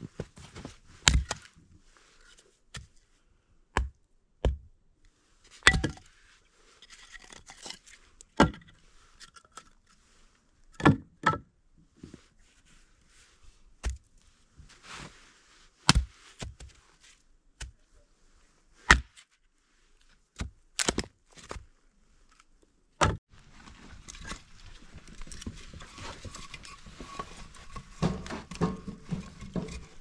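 Hatchet chopping and splitting firewood: about seventeen sharp chops at irregular intervals, some in quick pairs. After about 23 seconds the chopping stops and a steady low background noise takes over.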